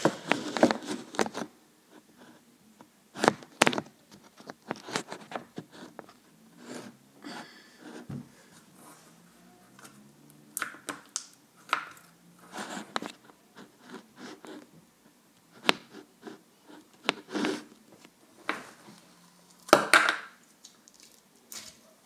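Hands squeezing and stretching glitter slime, giving irregular sticky squelches, pops and crackles.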